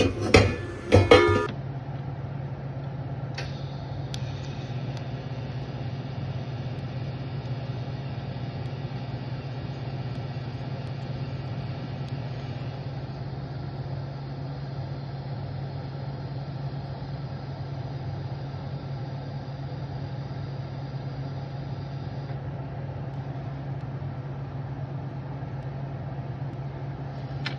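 TIG welding machine running with a steady hum. A higher hiss starts with a click about three seconds in and stops about 22 seconds in, as the arc is struck and run on mild-steel brackets.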